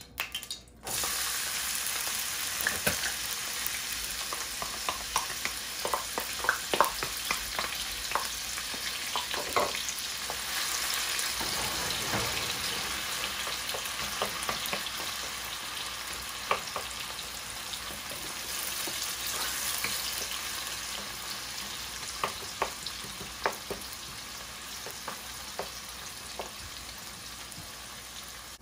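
Chopped onion hits hot oil in a nonstick frying pan just under a second in, then sizzles while a wooden spoon stirs and taps against the pan. The sizzle slowly dies down toward the end as the onion softens.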